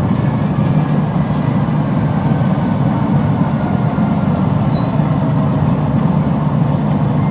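Electric monorail running, a steady rumble with a faint high whine over it.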